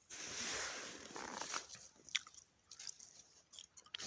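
Crunching of snow and ice, in a couple of rough stretches with a few sharp clicks.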